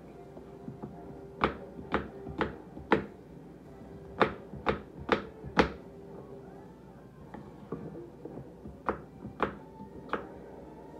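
Kitchen knife chopping apple into small cubes on a wooden cutting board: sharp knocks of the blade on the board in short runs of three or four strokes, about two a second, with pauses between.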